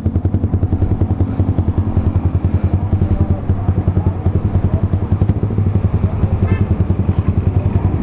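Yamaha R15 V3's single-cylinder four-stroke engine idling steadily through a Leovince GP Corsa carbon short aftermarket exhaust, at about 1200 rpm, an even rapid beat of roughly ten pulses a second.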